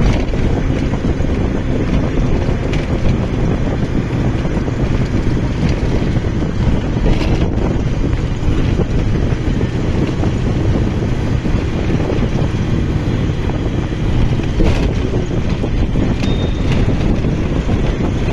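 Steady rumble of a moving bus's engine and road noise, with wind from the open window buffeting the microphone.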